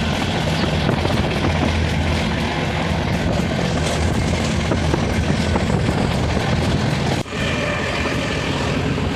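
Passenger train running: a loud, steady low rumble. It drops out briefly about seven seconds in and then resumes.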